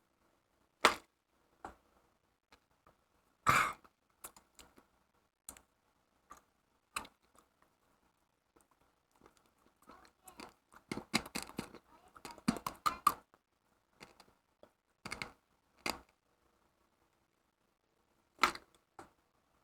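Mouth noises: scattered wet clicks and smacks of someone chewing and working small sticky packaging-absorbent beads around the mouth, with a few louder smacks and a busy flurry about halfway through.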